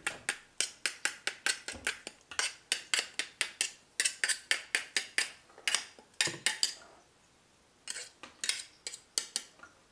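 Metal spoon knocking against a cooking pot while stirring boiling jam: a rapid run of sharp clicks, about five a second, that stops for about a second and then picks up again briefly near the end.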